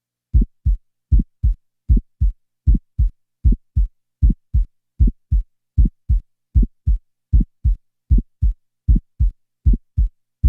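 Heart sounds as heard through a stethoscope: S1 closely followed by an early systolic ejection click, then S2, each beat a pair of short low thuds repeating steadily at about 78 beats a minute. The gaps between the thuds are silent, with no murmur filling systole.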